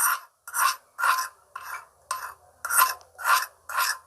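A utensil scraping the inside of a small pan, scooping out a soft mixture of melted ghee, kalonji oil and camphor. It makes about eight short rasping strokes, roughly two a second.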